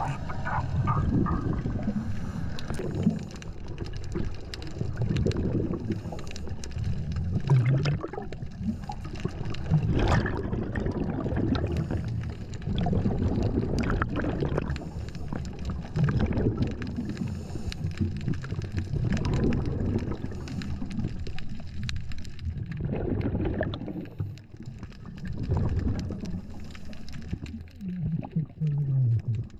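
Scuba diver's regulator underwater: exhaled bubbles gurgle out in repeated rushing bursts, with scattered clicks and knocks from handling gear.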